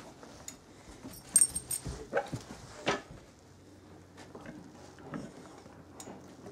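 A Great Dane moving about and nosing a basketball across carpet. A brief metallic jingle comes about a second and a half in, followed by two thumps about a second apart, then lighter knocks and shuffling.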